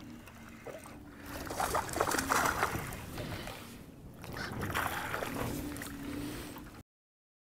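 Water sloshing and splashing against a small fishing boat, with wind rushing on the microphone; a hooked crappie thrashes at the surface beside the boat in the second half. The sound cuts off abruptly near the end.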